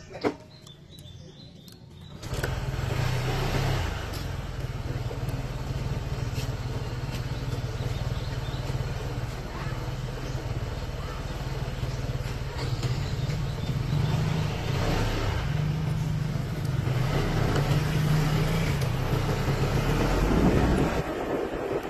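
Motorcycle engine running from about two seconds in, holding a steady idle, then rising somewhat near the end as the bike pulls away.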